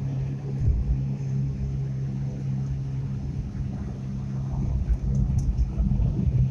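Car heard from inside the cabin while descending a mountain road: a steady low engine drone over a deep road and tyre rumble, which gets rougher and bumpier about two-thirds of the way in.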